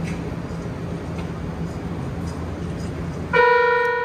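Steady cabin noise with a low hum aboard a Toei 6500-series subway train. About three seconds in, a loud electronic chime strikes a single bell-like note that rings on and slowly fades.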